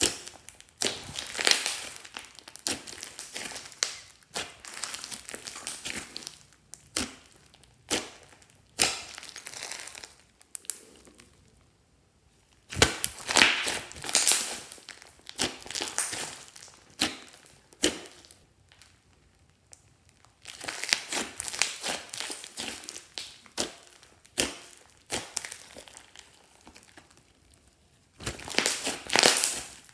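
Hands squishing and kneading a large mound of glossy slime, making sticky, wet clicks and pops. The sound comes in spells of a few seconds with short quiet pauses between them.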